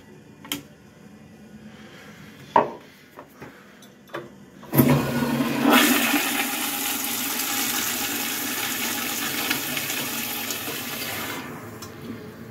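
A few sharp knocks as the toilet seat is put down. Then a Crane tank toilet flushes with a loud rush of water for about six seconds, dropping to a quieter water hiss near the end.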